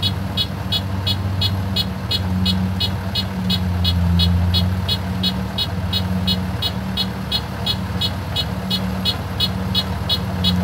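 Kubota DC-105X combine harvester's diesel engine running steadily with a low hum, over a regular high ticking about three times a second.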